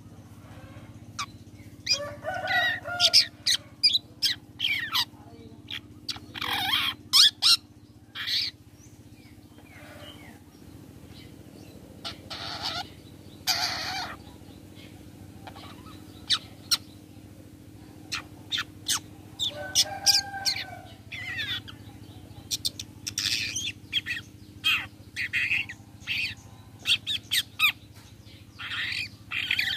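Long-tailed shrike (cendet) calling in irregular bursts of short, sharp, harsh chattering notes, broken by quiet gaps of a few seconds. A steady low hum runs underneath.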